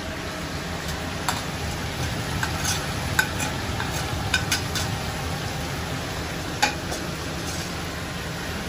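Food frying in oil in a pan with a steady sizzle, while a utensil stirs and clinks against the pan several times, most sharply about three seconds in and near the end.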